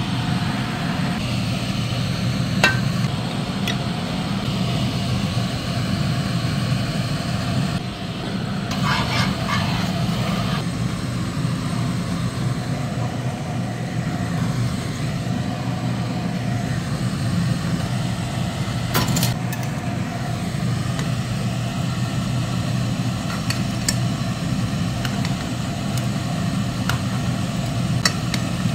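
Steady low machine hum, with a few light clicks and a brief rattle about nine seconds in.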